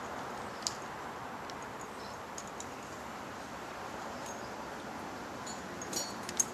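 Steady background hiss with a few light clicks and ticks of small hammock-stand parts being handled: the truss lines and fittings of the NoGround pole stand being taken off.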